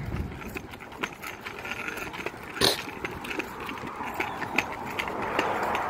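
A child's kick scooter rolling along a concrete sidewalk, its small wheels clicking and clacking over the bumps and slab joints. One sharp knock comes about two and a half seconds in, and a soft rushing noise swells near the end.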